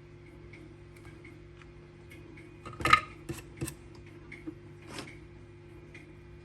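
Small tools and parts handled on a workbench during battery-pack wiring: one sharp click about three seconds in, then a few lighter clicks, over a steady electrical hum.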